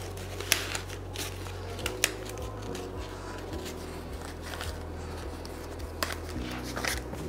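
Faint rustling and a few light clicks from handling a sheer blind's fabric and plastic fittings, over a steady low hum.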